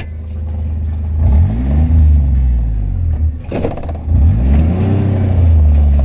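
A vehicle engine running, revving up and easing off twice, with a sharp clunk between the two rev-ups.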